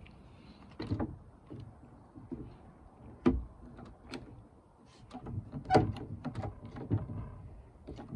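Scattered knocks, clicks and clunks of things being handled, at irregular intervals, the loudest about three and a quarter and five and three quarter seconds in.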